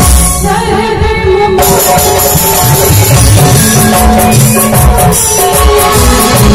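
Live Bhojpuri stage music: a woman singing into a microphone over keyboard and hand drums. A high, rhythmic percussion comes in about a second and a half in.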